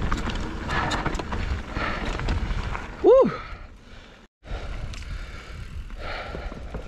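Mountain bike rolling down a dirt trail: rumbling tyre and wind noise with rattling clicks from the bike. About three seconds in, a short, loud whoop rises and falls in pitch, and a moment later the sound cuts out briefly.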